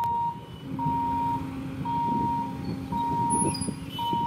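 Electronic warning beeper at a railway level crossing, one steady high beep about once a second. Under it, motorbike engines run as traffic starts across the tracks.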